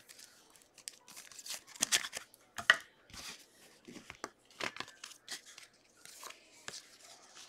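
Trading cards and their plastic sleeve being handled and shuffled: a run of soft, irregular rustles, slides and crinkles.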